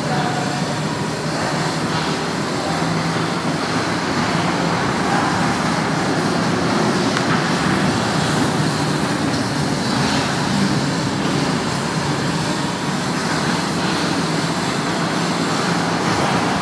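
Children's mini butterfly train running round its steel track under test, a steady rumble of wheels on the rails and the drive.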